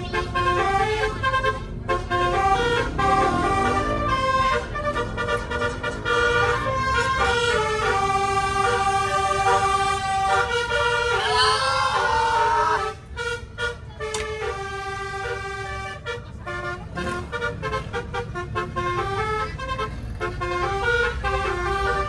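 Multi-tone telolet bus air horn playing a melody, jumping from one held note to the next, with a rising warbly sweep about eleven seconds in. A low rumble runs underneath.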